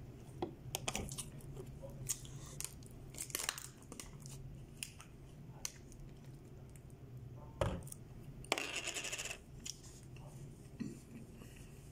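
Small handling sounds of a plastic water bottle being picked up and drunk from: scattered clicks and crinkles, a knock, then a second-long crackle of the plastic, with soft chewing between. A steady low hum runs underneath.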